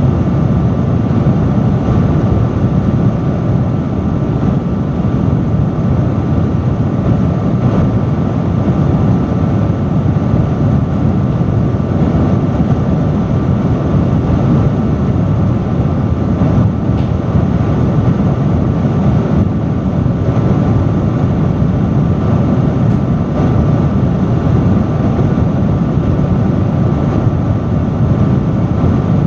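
Large industrial fan running steadily at high speed: a loud, even rush of air, heaviest in the low range, with a faint steady hum from the blades underneath.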